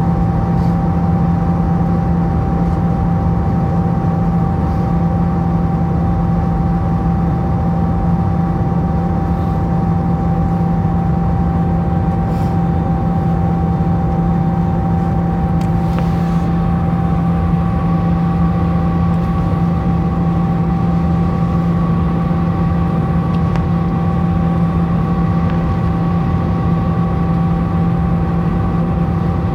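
Steady cabin noise of a Delta Airbus A320 in flight: a loud, even drone of engines and airflow with a steady whine above it, unchanging throughout.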